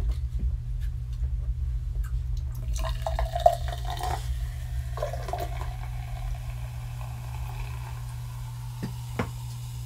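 Carbonated apple juice poured from a can into a drinking glass. It pours in a gush about three seconds in and again around five seconds, then fizzes in the glass. Two light knocks come near the end, all over a steady low hum.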